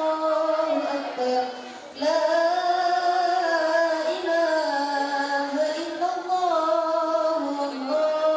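A female voice chanting in long, melodic held notes that slide gently between pitches, with a short pause for breath about two seconds in.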